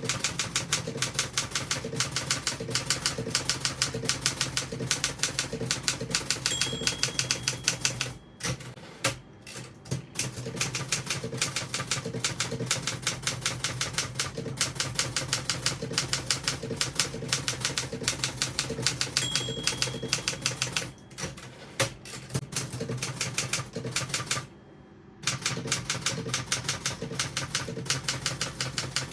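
1977 Olympia SG3 standard manual typewriter being touch-typed in fast runs of keystrokes, broken by a few short pauses. Its line-end margin bell rings briefly twice.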